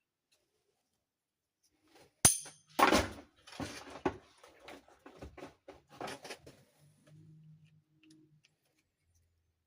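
Toy castle parts and packaging being handled: a sharp click about two seconds in, then rustling and a string of light taps and clicks.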